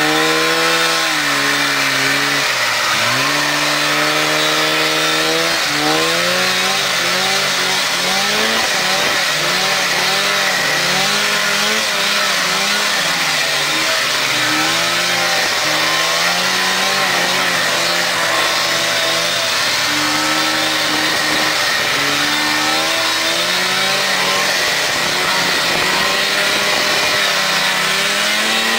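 Polaris Indy snowmobile's two-stroke engine running under way, its pitch climbing and dropping again and again as the throttle is worked, over a steady hiss.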